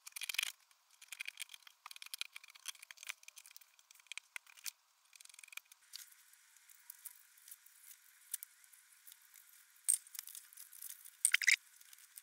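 Scissors snipping through a card template: an irregular run of short, crisp cuts and crackles, thinning out later, with two louder snips near the end.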